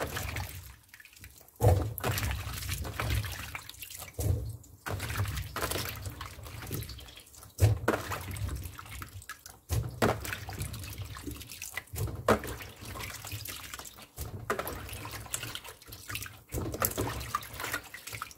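Hands splashing and scooping diced salted radish cubes out of a basin of rinse water, with irregular splashes and drips. The radish has just finished brining and is being rinsed and lifted out to drain.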